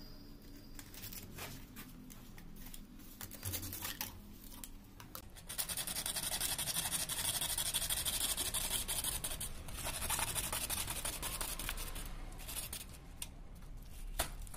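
Hacksaw cutting through a PVC water pipe: quick back-and-forth rasping strokes start about five seconds in and die away shortly before the end, after some lighter scraping as the pipe is handled.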